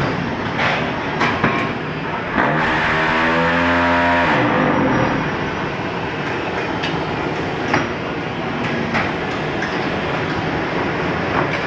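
QTY4-15 concrete block making machine running, with a steady mechanical din and scattered metal clanks. Partway through a loud hum swells in, holds for about two seconds and winds down.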